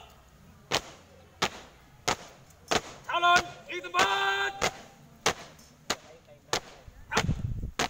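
A marching drill squad stamping their shoes on concrete in unison, one sharp stamp about every two-thirds of a second. A voice calls out twice in the middle.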